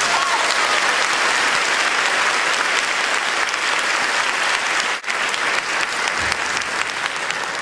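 Audience applauding, dense clapping with a brief break about five seconds in.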